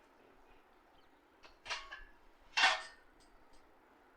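Printer parts being handled by hand: a few small clicks and two short clattering scrapes a little after a second in.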